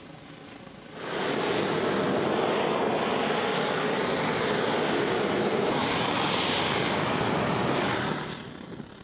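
Gas torch burning steadily, heating the oiled forged-steel skillet to season it. It starts suddenly about a second in and cuts off shortly before the end.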